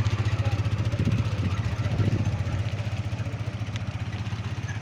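A small engine running steadily with a fast, even beat, growing slightly quieter toward the end.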